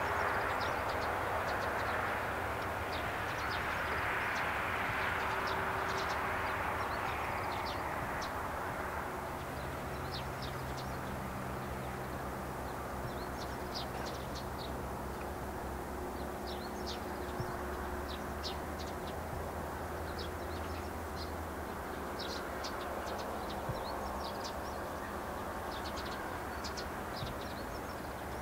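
Small birds chirping in short, repeated high calls throughout, over a steady distant rumble and hiss that eases off after the first several seconds.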